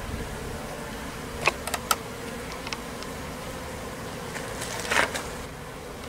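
Honeybees buzzing steadily around a tiered wooden box hive. A few sharp clicks about one and a half seconds in and a louder knock about five seconds in come from the hive's wooden boxes and fittings being handled.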